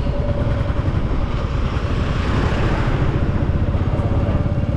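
Royal Enfield Classic 350's single-cylinder engine running as the bike rides along, a rapid low beat, while a rushing noise swells and fades in the middle.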